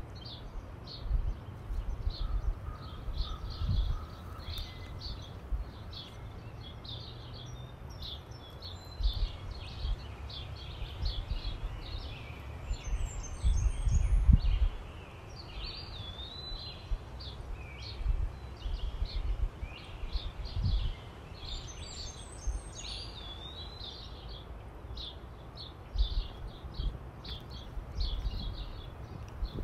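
Wild birds chirping and singing, with many short rapid notes throughout and two brief flurries of high falling calls. Low gusts of wind buffet the microphone now and then.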